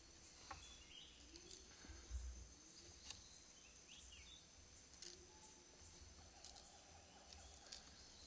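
Near silence with a few faint sharp ticks and crackles of rattan cane splitting as a parang blade is twisted in the split, over a steady faint high insect drone and a few short, faint bird chirps.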